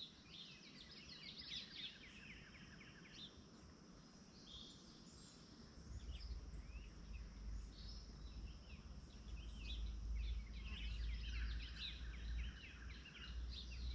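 Several birds chirping and singing faintly, with a low rumble that comes in about six seconds in.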